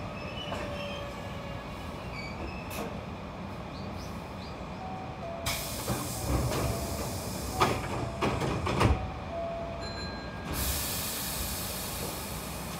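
Hankyu electric train running along the track with a steady rumble. Midway it grows louder, with clatter and a few sharp knocks, and a steady hiss sets in near the end.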